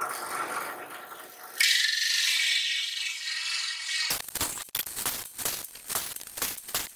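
Drill press driving a hole saw through a wooden plank. The running noise turns abruptly to a loud, gritty cutting hiss about one and a half seconds in. About four seconds in that gives way to a fast, irregular rattling.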